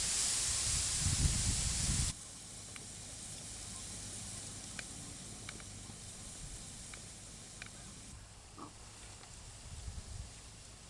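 A loud, steady hiss with low rumbling cuts off abruptly about two seconds in. What follows is a quiet outdoor background with a few faint ticks.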